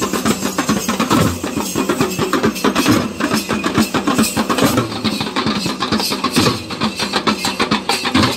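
Dhol drums beaten hard in a fast, dense, unbroken rhythm.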